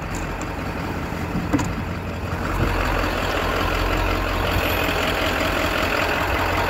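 Truck engine running at low speed with a steady low rumble, which grows a little louder about two and a half seconds in.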